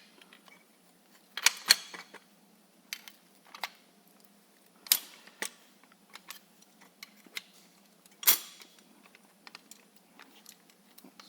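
Small hardware parts being handled and fitted together: scattered clicks and clacks, with sharper knocks about a second and a half in, around five seconds, and around eight seconds.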